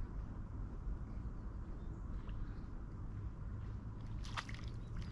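Water sloshing and splashing at the lake surface as a hooked fish is played, with short sharp splashes about two seconds in and again about four seconds in, over a steady low rumble.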